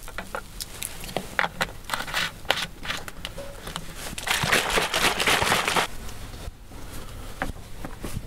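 A metal spoon clicking and tapping against a plastic water bottle as something is spooned in. About four seconds in, the half-full bottle is shaken hard for about a second and a half, water sloshing loudly inside, followed by a few light knocks.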